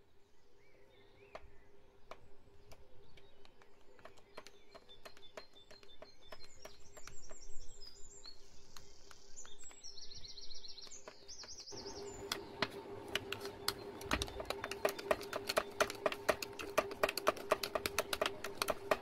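A spoon clicking and scraping against the sides of a cup as thick cake batter is stirred, the clicks sparse at first, then quick and louder from about two-thirds of the way in. A recorded dawn chorus of birds chirps in the middle, over a faint steady hum.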